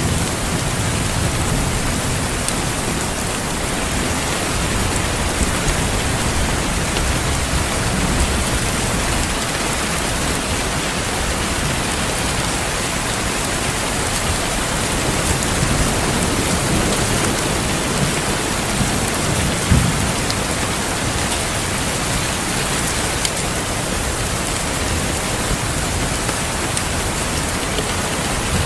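Steady rain falling, with a low, uneven thunder rumble underneath and one short low thud about twenty seconds in.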